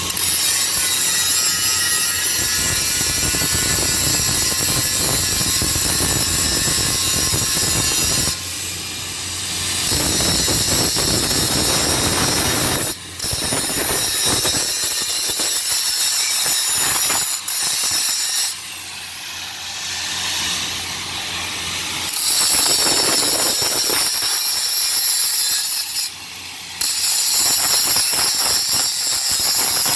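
Electric arc welding crackling and sizzling in long runs. The arc stops and restarts several times: briefly about a third of the way in, for a few seconds past the middle, and again near the end.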